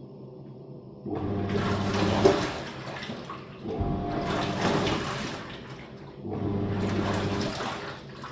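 Living & Co 5.5 kg top-loader washing machine agitating in its wash cycle: the wash plate churns the water in one direction and then the other. After a low hum, there are three churning surges with motor hum, each about two seconds long, beginning about a second in.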